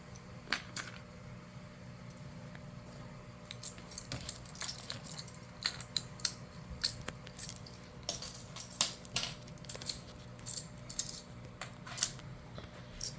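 Plastic magnetic building blocks clicking and snapping together as they are handled and joined, in irregular quick clicks that grow busier after a few seconds.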